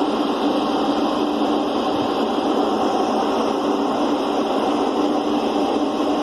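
Steady drone of a ship's engines and machinery, with a constant hum over an even rushing noise.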